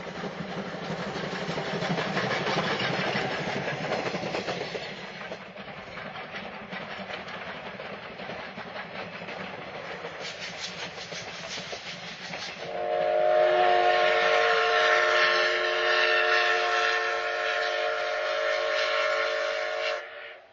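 Steam tank locomotive working a passenger train: exhaust chuffing and running noise, then a little past halfway a long, steady steam whistle of several tones held for about seven seconds before it cuts off.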